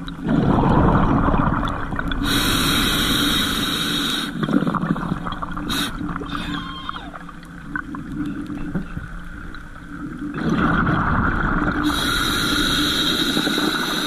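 A diver breathing underwater through a regulator, twice: a rush of exhaled bubbles followed by a hissing inhale with a whistling tone, with quieter water noise between the breaths.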